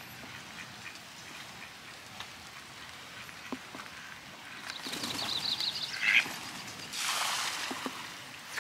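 A duck flushing from the lake shore: a quick rapid flurry about five seconds in, a short quack, then about a second of splashing as it lands on the water.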